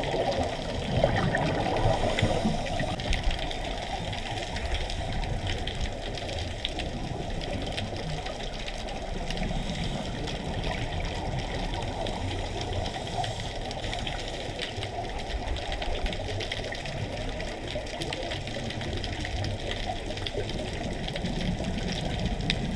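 Underwater sound picked up through a diving camera's housing: a steady low rumble with a fine crackle of tiny clicks. Gurgling bursts of scuba exhaust bubbles come now and then, loudest in the first few seconds.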